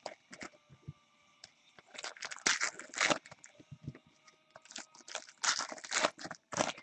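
Hands handling baseball cards and crinkly plastic card holders: irregular rustling and crinkling in short clusters, with quiet gaps between them.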